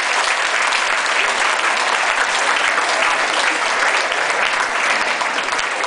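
Crowd applauding steadily, a dense wash of hand claps with a few faint voices mixed in.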